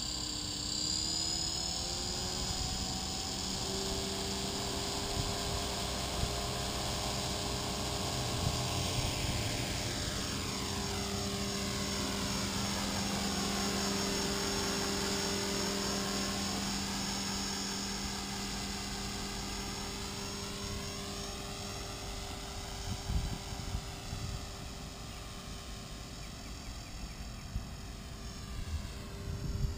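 Blade 300X electric RC helicopter, its brushless motor and rotor spooling up with a rising whine over the first few seconds, then holding a steady whine as it lifts off and flies. The sound wavers as the helicopter moves about and grows fainter toward the end as it flies farther off.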